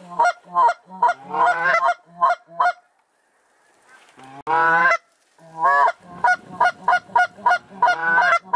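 White-fronted geese (specks) calling close and loud: quick runs of short yodelling notes, three or four a second. After a brief pause about three seconds in comes one longer call, then another fast run.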